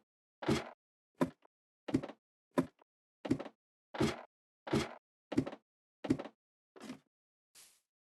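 A steady run of short thuds, about a dozen, one roughly every two-thirds of a second, the last one fainter.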